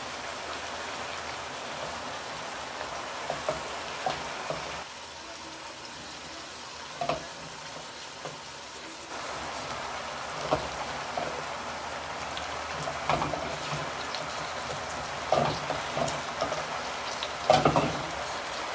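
Sliced bell peppers and onions sizzling in a frying pan. A wooden spoon knocks and scrapes against the pan now and then, the loudest strokes near the end.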